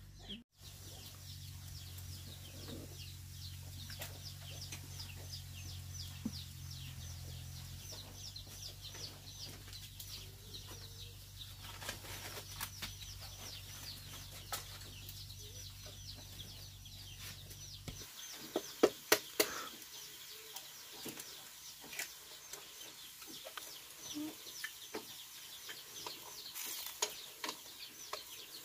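Domestic chickens clucking, with a rapid run of high, falling chirps, several a second, through the first half. A steady low hum stops about two-thirds of the way in, and a few sharp knocks follow just after.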